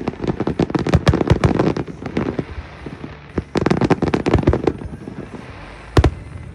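Aerial fireworks going off in rapid volleys of sharp cracks and bangs, with a brief lull about halfway, then another dense volley and a single loud bang near the end.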